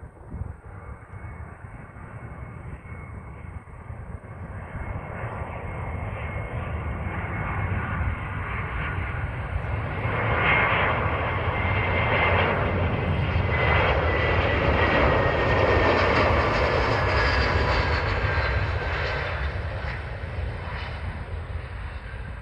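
Airbus A320 jet airliner with landing gear down flying low past on final approach: the engine noise swells to its loudest as it goes by, with a high whine that falls in pitch as it passes, then eases off.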